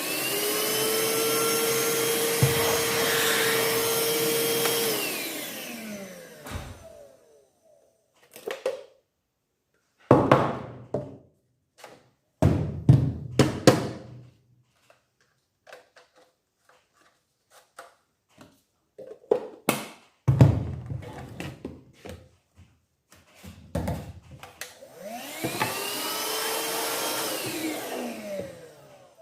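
STIHL SEA 20 cordless handheld vacuum switched on and running steadily with a whine for about five seconds, then winding down. There are clicks and knocks as it is handled, and near the end it runs again for about four seconds and winds down.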